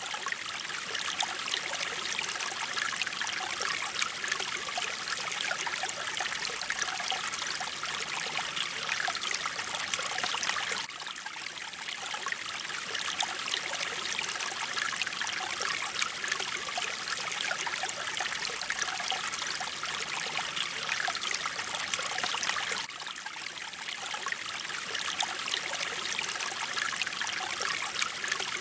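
Flowing mountain stream water, a steady rushing and trickling that briefly dips slightly about 11 and 23 seconds in.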